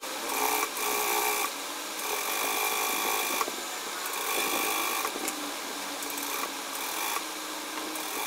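Electric sewing machine running steadily, stitching a seam along the edge of a churidar top's fabric.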